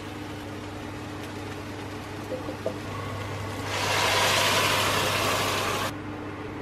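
Steady low hum of kitchen background, and a little past the middle a loud hissing rush for about two seconds, starting and stopping sharply, as tiny dumplings are tipped into the hot pot of chicken soup.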